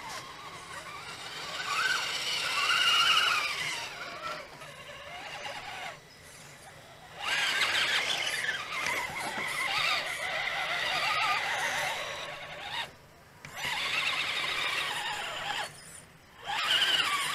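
1/10-scale Vaterra Ascender RC crawler's electric motor and gearbox whining in bursts, the pitch rising and falling with the throttle as it climbs under load. The whine stops briefly about six, thirteen and sixteen seconds in.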